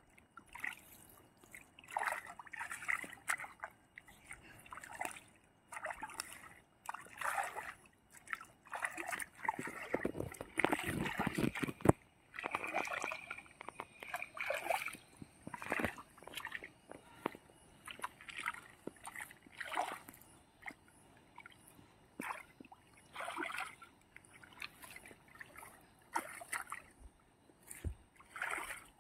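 Pond water splashing and sloshing in irregular short bursts every second or two, with a longer, louder spell about ten seconds in.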